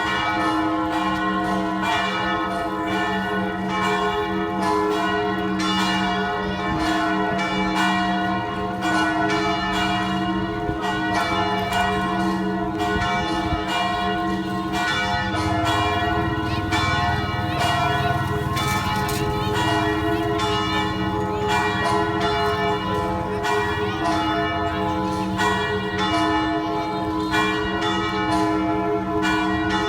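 A set of church bells ringing continuously, several bells struck in quick succession so that their ringing tones overlap. A deeper tone swells in about halfway through.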